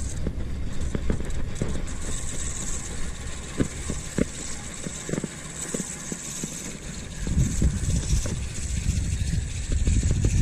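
Spinning reel being cranked as a small fish is played on a bent rod, with wind rumbling on the microphone and a few light knocks. A steady high hiss joins about two seconds in.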